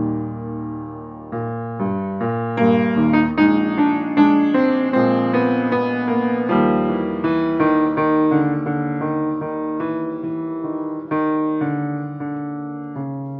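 Grand piano played solo: chords and melody notes struck and fading, swelling louder a few seconds in and growing softer near the end.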